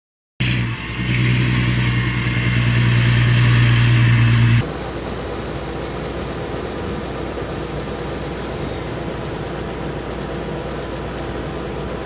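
Heavy machinery running steadily beside a military radar vehicle, with a strong low hum. About four and a half seconds in the sound changes abruptly to a steadier, more hiss-like running noise.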